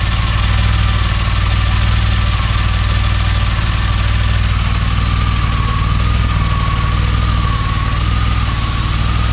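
DeLorean DMC-12's PRV V6 engine idling steadily, with a high whine above the engine note that wavers slightly in pitch.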